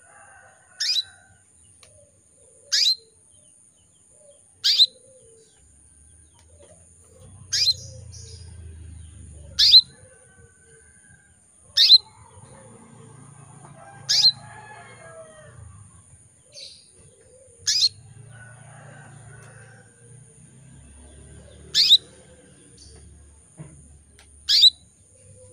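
Female domestic canary calling: short, sharp, downward-sweeping call notes, one every two to four seconds, about ten in all. It is the call of a hen in breeding condition, used to draw a male canary into song.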